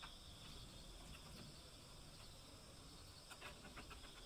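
Near silence: workshop room tone with a faint steady high-pitched whine, and a few faint light clicks about three seconds in.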